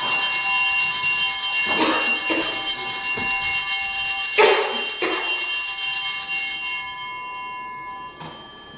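Altar bells rung at the elevation of the host during the consecration: a cluster of bright, ringing tones, struck again about two and four and a half seconds in, then dying away over the last couple of seconds.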